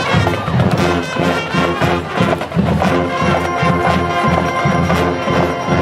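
High school marching band playing, with brass (trumpets and trombones) over a steady drum beat.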